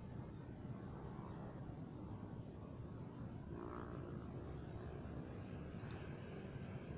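Outdoor ambience of insects buzzing in a steady high thin band over a low steady rumble, with a few faint short high chirps scattered through.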